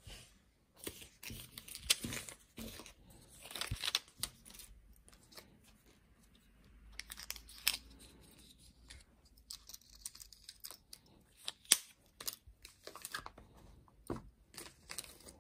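Thin clear plastic film and bags rustling and crinkling in the hands in short irregular spells, with a few sharp light clicks.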